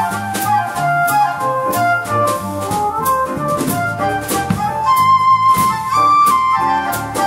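Live jazz combo playing an instrumental passage: a quick-moving lead melody line over a bass line and drums with frequent cymbal strikes.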